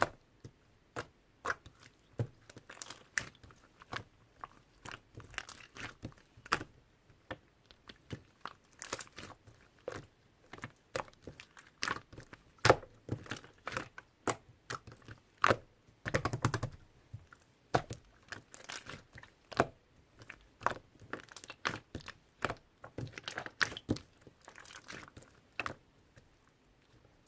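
Toy slime being squeezed, stretched and poked by hand, giving a steady stream of irregular sticky clicks and crackles, with a denser crackling stretch a little past halfway.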